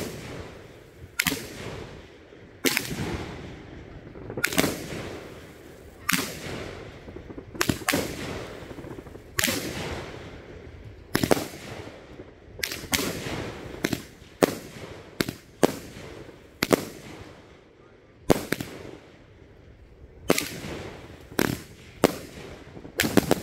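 Raccoon City fireworks cake firing a steady string of aerial shots: a sharp bang about every second or so, each dying away over about a second. A quick cluster of bangs comes near the end.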